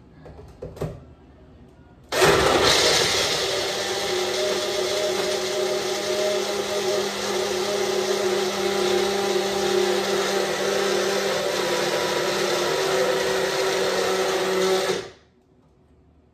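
Single-serve personal blender crushing frozen pineapple and strawberries in juice: after a short knock under a second in, the motor starts abruptly about two seconds in, runs steadily and loudly with a held hum for about thirteen seconds, then stops.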